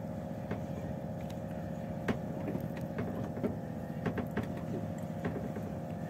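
A boat's engine running steadily with a low hum, and scattered light knocks and clicks over it.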